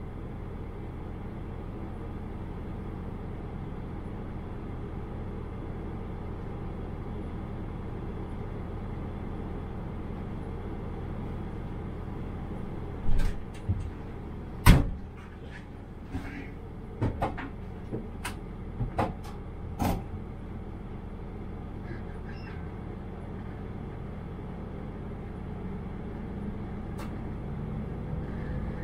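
Diesel railcar idling steadily while standing at a platform, with a run of sharp clunks and clicks about halfway through. Near the end the low running sound rises slightly as the train moves off.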